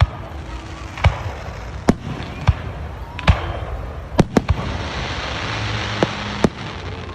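Aerial fireworks bursting: about ten sharp bangs at uneven intervals, three of them in quick succession a little past the middle, followed by a crackling hiss.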